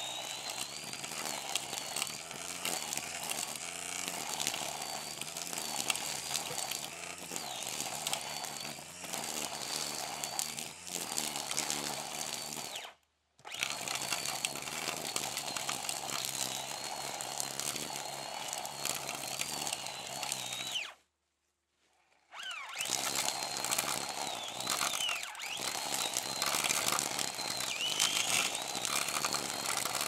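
Brush cutter running, with a high whine that wavers and dips now and then as the throttle changes. The sound cuts out briefly about halfway through and again for over a second later on, between recordings.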